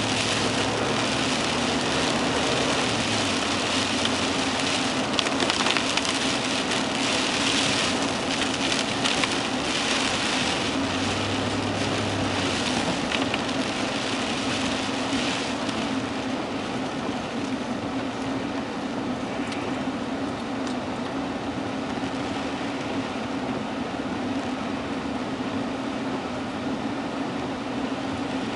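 Steady rushing noise of a heavy rainstorm over a steady low hum. It is louder and more uneven in the first half and eases off after about sixteen seconds.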